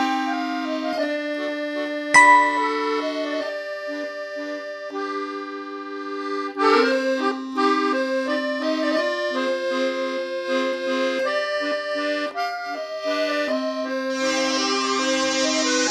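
Instrumental background music: held notes stepping through a melody over a steady low drone, with a hissing layer joining near the end.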